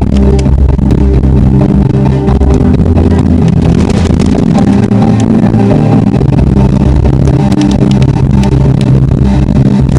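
Loud music with held low notes, with brief sharp crackles over it.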